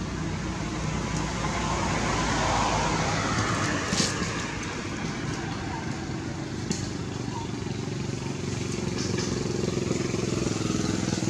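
A motor vehicle engine running steadily, growing louder about two to three seconds in and then easing off, with a single sharp click about four seconds in.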